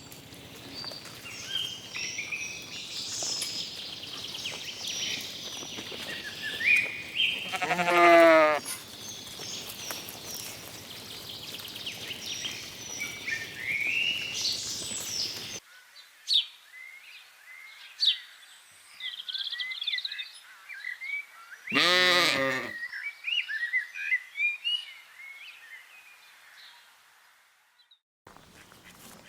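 Lambs bleating, two single bleats, one about eight seconds in (the loudest) and another about twenty-two seconds in, over steady songbird chirping. The background hiss drops off suddenly about halfway through.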